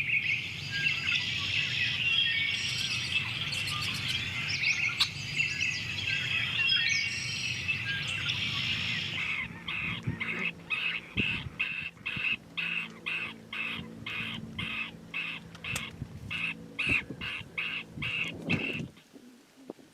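Birds chirping and calling: a dense chorus of overlapping chirps, then a short call repeated about twice a second until shortly before the end.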